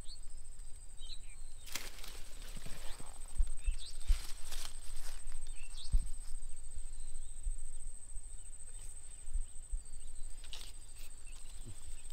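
Rural outdoor ambience: scattered short bird chirps over a steady high-pitched whine, with a few brief rustles about two, four and ten seconds in.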